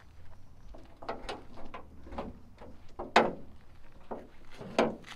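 Sheet-metal knocks and clicks from handling a car's raised hood and its prop rod, with two sharp knocks, the louder about three seconds in and another near the end.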